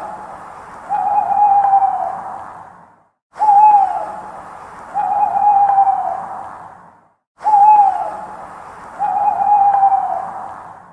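An owl hooting in a repeating pair: a short hoot that drops in pitch, then a longer, steadier hoot. The pair comes three times, about every four seconds, with a short dead-silent break between repeats as the recording loops.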